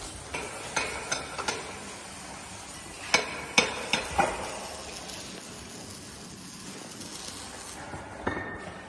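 Sharp clinks and knocks from installation work on an egg-tray dryer line: several in the first second and a half, a louder cluster around three to four seconds in, and one more near the end, over a steady background hiss.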